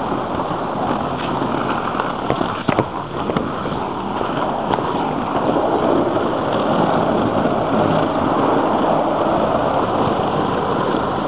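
Steady rush of wind on the microphone and wheels rolling over wet pavement while moving at speed, with a few sharp clicks two to three seconds in.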